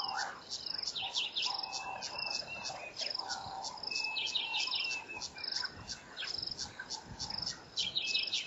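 Several wild birds calling: a high short note repeats about twice a second over lower held notes. Bursts of quick falling notes come in about four seconds in and again near the end.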